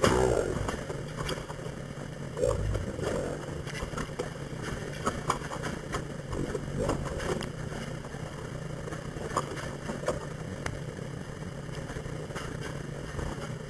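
Microwave oven running with a steady low hum, with a few scattered faint clicks.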